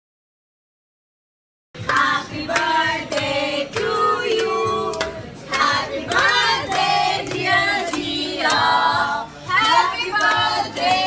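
Group of women singing together while clapping their hands in time; the sound is dead silent for the first couple of seconds, then the singing and clapping start.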